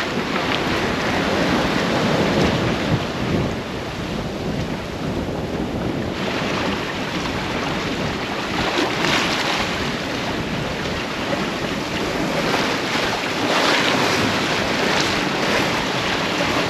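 Strong wind buffeting the microphone over the rush of waves and water along a sailboat's hull while it runs on a broad reach, a steady rushing noise that swells now and then.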